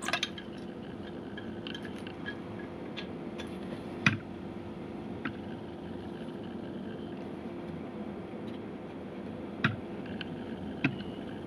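Handling noise from a plastic pan/tilt IP camera and its cable being turned over in the hands: a few sharp clicks and taps, the loudest about four seconds in, over a steady hum.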